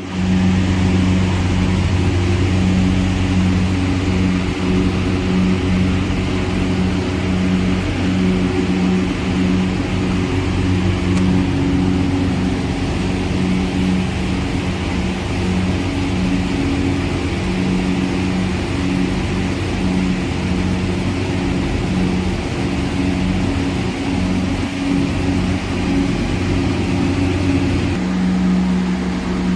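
Steady, loud electric hum of running machinery, a low droning tone with a higher tone above it. Near the end the deepest part of the hum drops away while the higher tone goes on.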